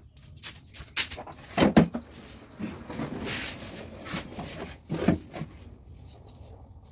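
Kitchen-work handling sounds on a wooden bench: a few sharp knocks and clatters, the loudest a little under two seconds in, with a rustle in the middle.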